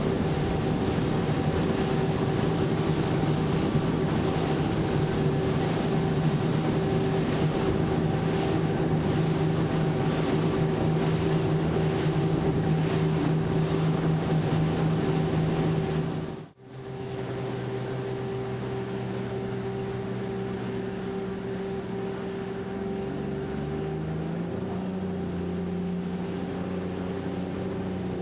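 Frauscher hybrid motorboat running at planing speed: a steady drive drone over the rush of water and wind. About 16 s in the sound cuts briefly, then returns a little quieter, and its pitch steps up a few times near the end as the drive speeds up.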